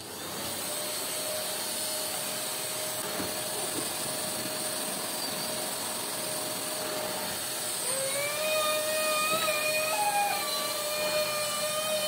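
Deerma DX115C corded stick vacuum cleaner motor spinning up at the start, then running steadily with a constant whine and a high whistle over the rush of air as it is pushed over a rug. From about eight seconds in, a wavering higher tone with overtones joins it.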